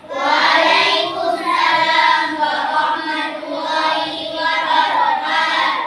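A class of children singing together in unison, loud and unbroken.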